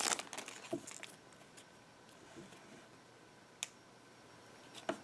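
Trading cards being handled: the torn foil pack wrapper rustles briefly at the start, then a few soft clicks as the cards are slid apart in the hands, with one sharper click about three and a half seconds in.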